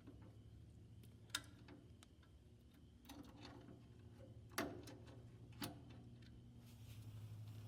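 Small metal clicks and taps from handling a little U-bolt and a tractor's throttle cable: three sharper clicks spread over the middle, softer ticks between, over a faint low hum.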